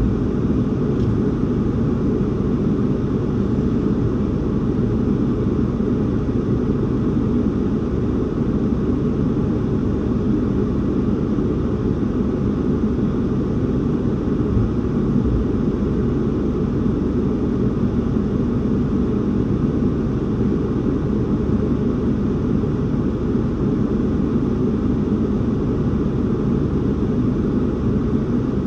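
Steady low rumble of strong wind buffeting a parked car, heard from inside the cabin.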